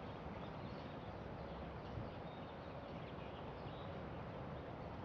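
Faint, steady outdoor background noise with no distinct event.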